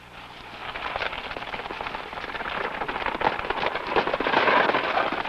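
Horse-drawn sleigh coming over snow: a dense crunching and crackling that grows louder through the first four seconds or so.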